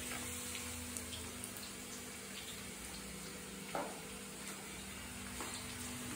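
Chopped onions frying in mustard oil in a steel kadhai, a steady faint sizzle as they brown. A soft knock about four seconds in.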